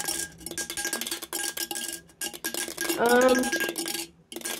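A coin rattling and clinking inside an empty aluminium drink can shaken upside down, a fast run of small metallic clicks as the stuck coin refuses to come out of the opening. A brief hum of a voice about three seconds in.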